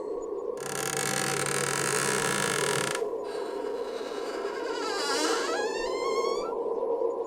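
Layered horror sound effects over a steady dark drone: a rushing, hissing swell lasting about two seconds, then a wavering pitched sound that bends down and back up a few seconds in.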